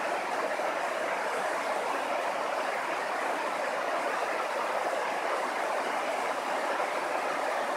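A river in flood after heavy rain, rushing over a low weir: an even, steady rush of falling water.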